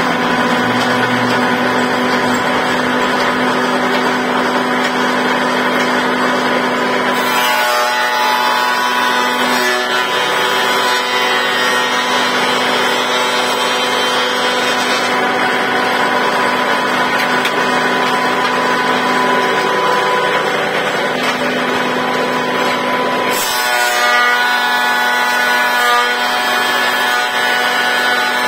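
Elu DAH 176 combination woodworking machine running loud and steady with a high whine as its cutter block planes pine boards fed through the thicknesser. The tone changes abruptly twice, about seven seconds in and again near the end, as the cutters take a board.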